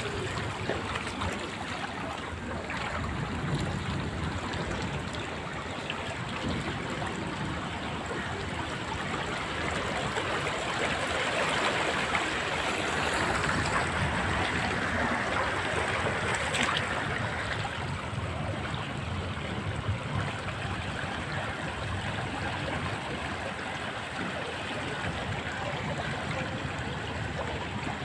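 Surge seawater rushing and washing through a flooded lane, a steady rushing noise that swells louder for several seconds midway.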